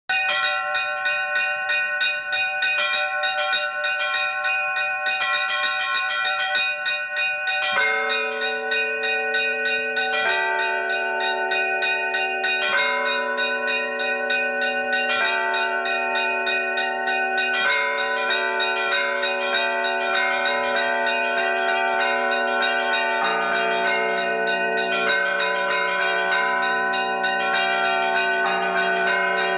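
Church bells ringing in a fast, continuous peal, with deeper bells joining about eight seconds in and a deeper one still after about twenty-three seconds.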